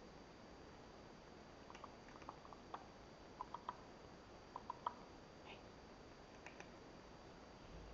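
A cat eating dry kibble from a ceramic bowl: quick clusters of small crunches and clicks as it chews, beginning about two seconds in, with a few scattered ones later.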